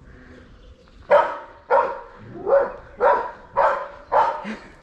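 A dog barking repeatedly: seven loud barks about half a second apart, starting about a second in.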